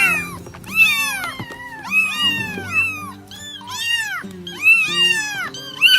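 Baby kittens meowing over and over, high-pitched calls that rise and fall, one to two a second and sometimes overlapping, over soft background music.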